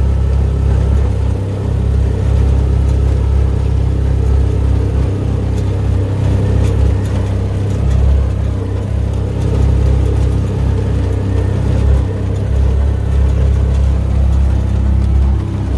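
Yamaha Rhino 700 side-by-side's single-cylinder engine running steadily as it drives along in high range.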